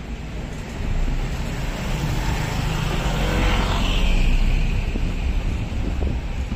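A motor vehicle passing close by on a street, swelling to its loudest about four seconds in and then fading, over a steady low traffic rumble.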